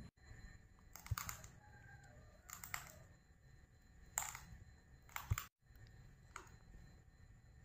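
Short, sharp crunches of a Tiger double-edge steel razor blade being bitten and chewed, about five of them with gaps of a second or more.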